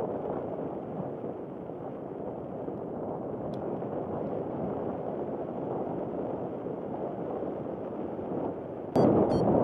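Steady rush of wind over the microphone in flight. Near the end it gets suddenly louder and a quick run of short, regular beeps starts.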